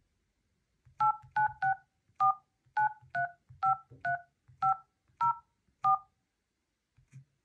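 Keypad touch tones from a Xiaomi Redmi Note 5A as an eleven-digit phone number is dialed: eleven short two-note beeps, irregularly spaced over about five seconds, each with a soft tap of the finger on the screen. A faint tap follows near the end.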